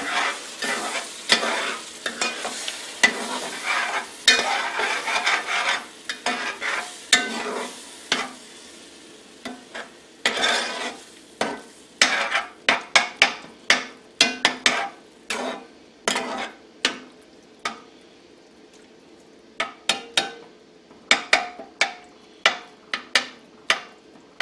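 Metal spoon stirring and scraping diced tomatoes through a sizzling onion, bell pepper and roux base in a cast aluminum pot. From about halfway in, the stirring becomes a run of sharp, separate clinks of the spoon against the pot.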